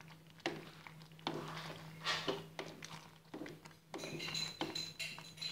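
Wooden spatula stirring and scraping thick meat sauce in an aluminium pan: a series of irregular, short strokes over a steady low hum.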